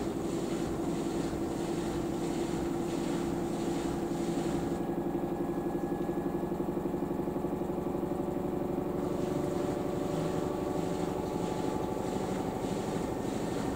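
LG AiDD Steam direct-drive washing machine in its interim spin: the drum spins steadily with a constant motor hum and whine. A higher hiss drops away for a few seconds midway.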